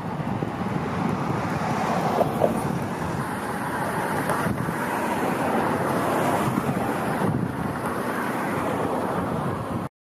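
Steady outdoor noise, an even rumbling hiss without any clear single source, that drops out for an instant near the end.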